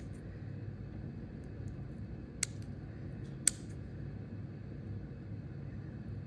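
Steady low room hum, like a fan or appliance running, with two sharp clicks about a second apart near the middle, the second louder.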